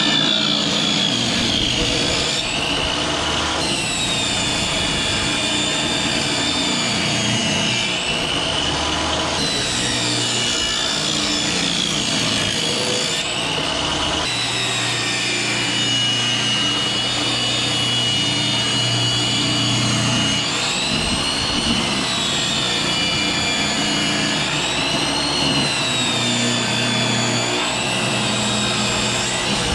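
Portable jobsite table saw running continuously while ripping pine boards lengthwise. The motor's high whine sags several times as the blade takes the wood and climbs back as each pass finishes.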